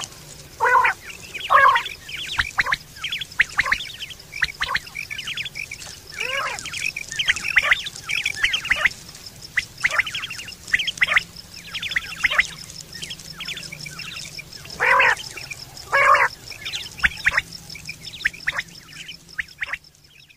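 Quail (batair) calling over and over: a quick, irregular string of short chirps and squawks, the two loudest about three-quarters of the way through. A steady, high, fast-pulsing trill runs underneath.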